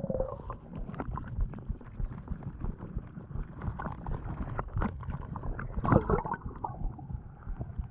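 Water sloshing and gurgling, muffled as heard through an action camera held underwater, with many small clicks and knocks and one louder surge about six seconds in.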